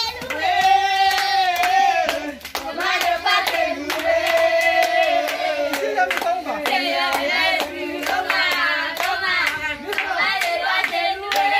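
Voices singing a song together, with rhythmic hand clapping keeping time.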